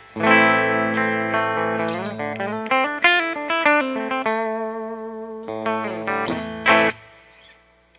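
1960s Yamaha SG-5A "Flying Samurai" electric guitar played through an amp with a clean tone. A strummed chord is left ringing, then comes a quick run of single notes in the middle, then more chords that die away near the end.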